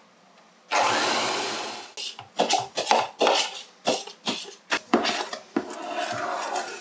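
Electric hand mixer running for about a second and fading out, beating egg whites. Then a metal spoon repeatedly scrapes and knocks against plastic mixing bowls as the stiff egg whites are scooped into the cake batter and folded in.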